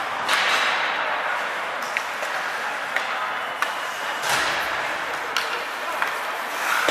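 Ice hockey game heard from the rink stands: skate blades scraping the ice in short hissing swells, sharp clacks of sticks and puck about once a second, and spectators talking underneath.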